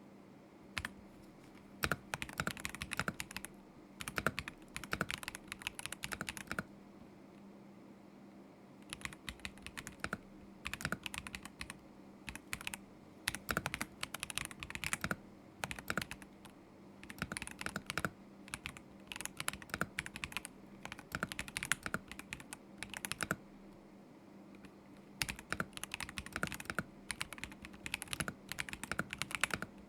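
Typing on a KZZI K75 Pro mechanical keyboard with Moment linear switches: quick runs of keystrokes lasting a few seconds each, broken by short pauses of a second or two.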